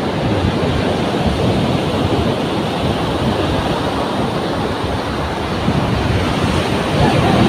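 Rough surf breaking and washing on a sandy beach, a steady, unbroken rush of noise, with wind buffeting the microphone.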